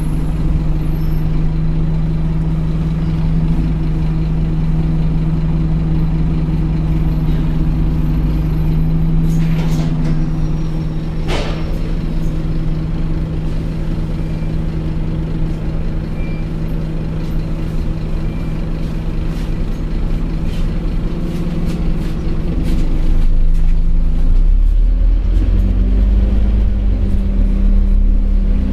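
Interior of a Scania OmniCity N230UD double-decker bus, its diesel engine running with a steady low hum as the bus moves. A short sharp click comes about eleven seconds in. From about 23 seconds the engine note drops lower and grows louder.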